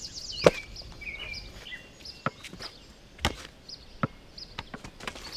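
A basketball bouncing on a concrete court: a handful of separate thuds at irregular spacing, the loudest about half a second in. Birds chirp between them.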